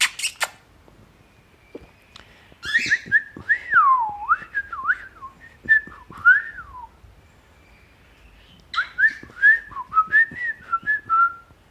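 Pet parrot chattering in whistled notes that glide up and down, in two bouts a couple of seconds apart. A few sharp clicks come right at the start.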